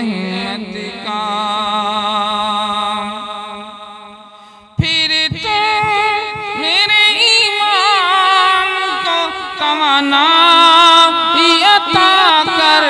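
A man singing an Urdu devotional poem unaccompanied. A long held note with a slight waver fades away over about four seconds, then he comes back in with ornamented phrases that glide up and down in pitch.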